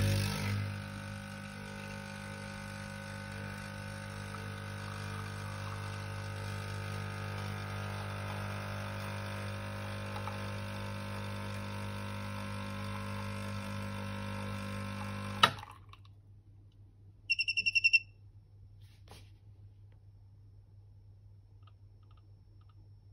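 Rancilio Silvia espresso machine's vibratory pump humming steadily while pulling an espresso shot, cutting off about 15 seconds in with a sharp click. About two seconds later comes a quick run of high electronic beeps.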